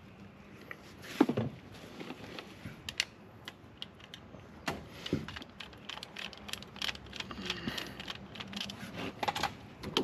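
Irregular metallic clicks and taps from small hardware and hand tools being handled while a ground wire and lug are fitted into a metal electrical box, the loudest knock about a second in.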